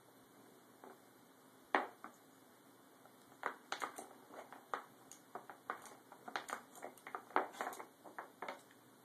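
Wooden pieces of a Nina Ottosson Dog Fighter puzzle toy clicking and knocking as a small dog shifts the sliding blocks and pegs to get at treats. One sharp knock comes about two seconds in, then a busy run of light wooden clicks fills the second half.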